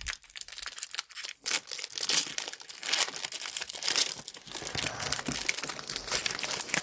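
Foil wrapper of a Pokémon TCG Journey Together booster pack being torn open and crinkled in the hands: a dense run of crackles and crisp rustling that keeps going.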